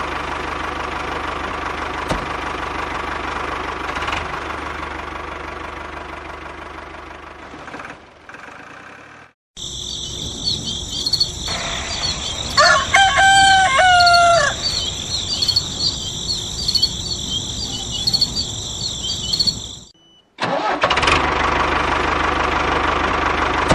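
A rooster crows once, for about two seconds, near the middle, over steady high-pitched chirping. Before it, a steady whirring noise fades out about nine seconds in; after a short gap near the end, the whirring comes back.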